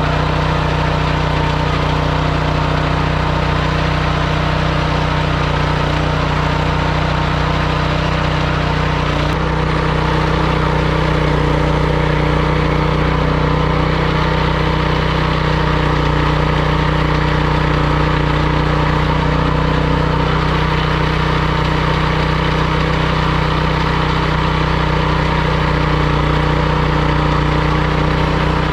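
Motor-driven meat grinder running steadily as meat is fed through it, its motor giving a constant low hum; the sound gets slightly louder about nine seconds in.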